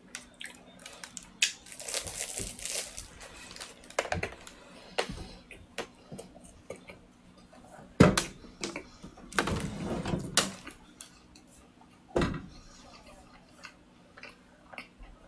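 Eating a flaky chocolate croissant: bites and chewing, with irregular crackles of the layered crust tearing and a few sharper knocks and clicks.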